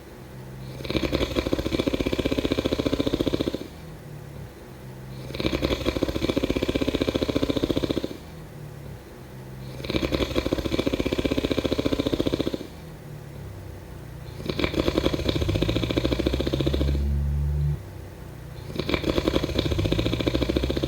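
A person snoring: five rattling snores, each lasting about two and a half to three seconds and coming about every four and a half seconds, with softer breathing between. The last two snores are deeper.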